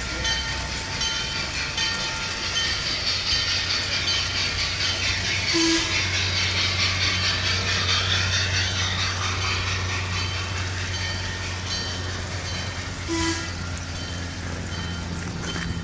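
G-scale Bachmann model train, a 4-6-0 locomotive pulling a baggage car and coaches, rolling along the track across a steel bridge: a steady rumble and hiss of wheels on rails, loudest a few seconds in as the cars pass close.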